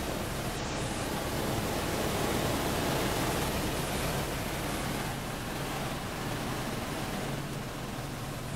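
Helicopter in flight heard from inside the cabin: a steady rush of wind and engine noise with a low, even hum underneath.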